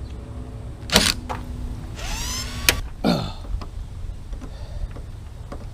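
Small cordless impact driver run briefly on a bracket screw: a click, then a short rising motor whine that stops sharply with another click, then winds down.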